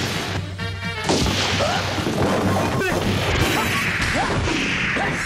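Action-film sound effects: repeated crashes and smashing impacts, dense and loud, over background music.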